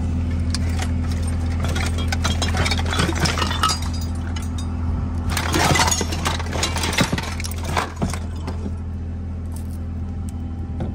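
Loose scrap metal clinking and clattering as a rusty bench vise is dragged and lifted out of a pile of junk, the loudest rattles about six seconds in. A steady low engine hum runs underneath.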